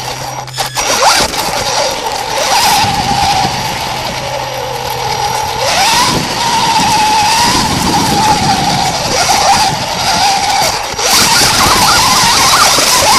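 Electric RC truck heard from a camera mounted on it as it drives over gravel and climbs a loose dirt pile. The motor and drivetrain whine rises and falls with speed, dipping and then climbing sharply about halfway through. Under it runs a steady rush of tyre and stone noise with scattered clicks.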